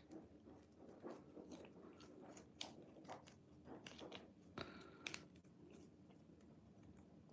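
Faint, irregular smacking and clicking of a cat licking and chewing a paste treat squeezed from a snack tube, thinning out near the end.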